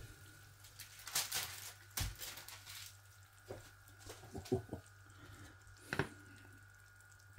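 Handling of a plastic microwave ready-meal tray on a ceramic plate: light rustles and clicks, a soft thump about two seconds in, a few short scrapes a little after the middle, and a knock about six seconds in as the tray is gripped, over a faint steady electrical hum.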